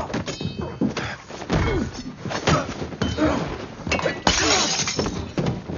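Fight sound effects: a rapid run of hits and thuds with glass breaking. The biggest crash, a long burst of shattering glass, comes about four seconds in.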